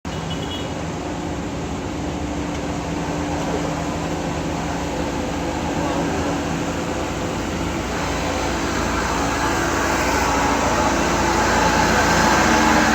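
Heavy truck's diesel engine running steadily under load, gradually getting louder.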